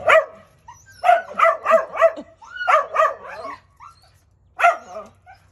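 A dog barking at a squirrel it can't reach: one bark, then a quick run of about four high-pitched barks, a few more after a short pause, and a last one near the end.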